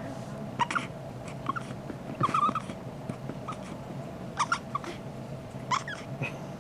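A baby's short, high squeaks, about six of them spaced roughly a second apart, some coming in quick pairs, made while being burped.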